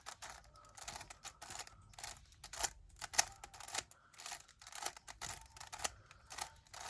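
Plastic Rubik's cube layers being turned by hand in quick succession, making irregular clicks and clacks several times a second as a corner-insertion move is repeated over and over.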